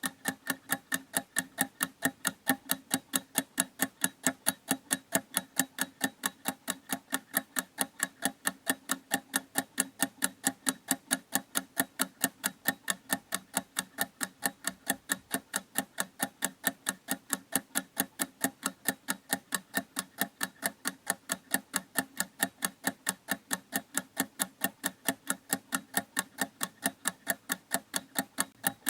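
Clock ticking steadily in an even, rapid rhythm of about four ticks a second.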